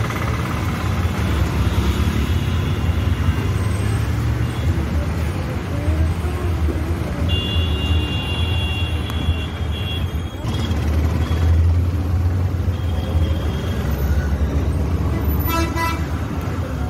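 Steady low rumble of passing road traffic, with a vehicle horn sounding for about two seconds partway through and a short horn toot near the end.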